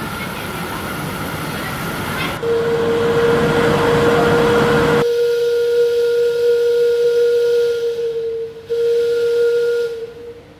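Steam hissing from a small live-steam locomotive, then about two seconds in its steam whistle starts one long steady note that sounds until near the end, with a short break shortly before it stops.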